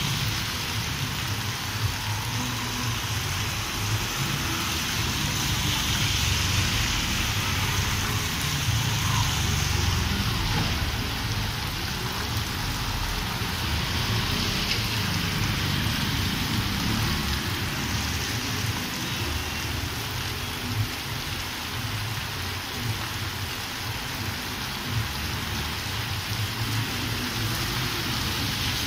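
Heavy rain falling steadily on a paved street, with a low rumble underneath.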